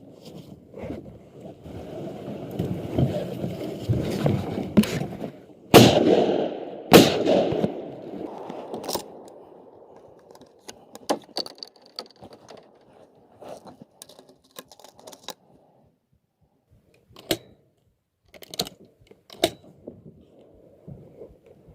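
Two shotgun shots about a second apart, following a few seconds of rising rustling noise; scattered clicks and knocks follow.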